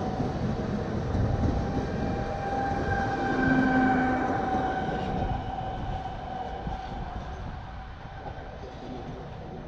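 Electric multiple-unit commuter train, a Pesa Elf at the rear, passing close and then receding: wheels rumbling on the rails, with a steady whine from the electric drive. The sound is loudest about four seconds in, then fades as the train moves away.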